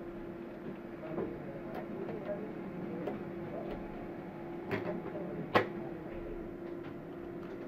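A few sharp clicks and knocks of hard parts being handled, with the loudest knock about five and a half seconds in, over a steady low hum.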